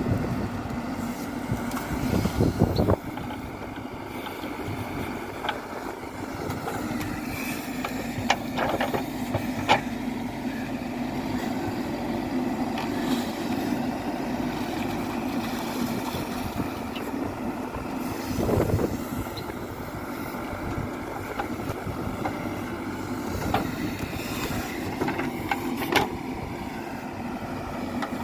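Diesel engines of tractors and a backhoe loader running steadily while working, with a few sharp knocks and bumps along the way.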